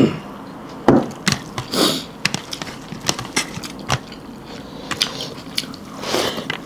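Close-up eating sounds: a person chewing a mouthful of food, with irregular mouth clicks and smacks and a couple of short slurps of soup, one near the start and one near the end.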